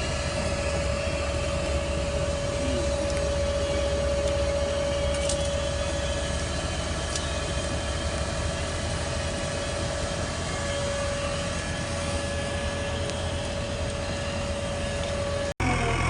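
Diesel engine of a JCB 3DX backhoe loader running steadily with a constant high whine over the low rumble. The sound cuts out abruptly for a moment near the end.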